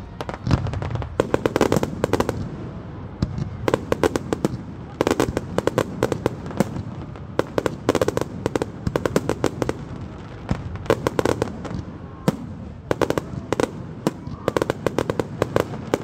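Fireworks display: aerial shells bursting in quick runs of sharp bangs and crackles, with short lulls between volleys.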